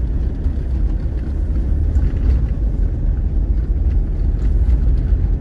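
Road noise inside a car's cabin while it drives along an unpaved dirt track: a steady low rumble of tyres and engine.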